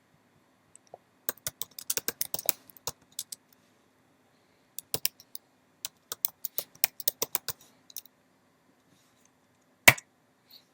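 Computer keyboard typing in two quick bursts of keystrokes, followed near the end by a single louder key strike.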